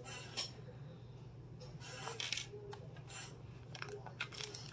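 Faint rustling and a few light clicks of plastic packaging being handled while a package is opened with a pen-style craft knife.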